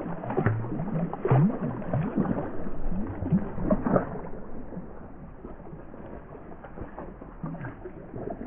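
Shallow lake water sloshing and gurgling around a hand in the water as a yellow perch is let go among rocks, followed by gentle lapping that grows quieter about halfway through.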